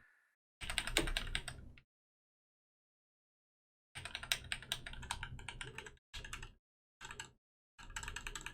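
Computer keyboard keys tapped in quick runs: one short run about a second in, then several longer runs from about four seconds on, with silent gaps between.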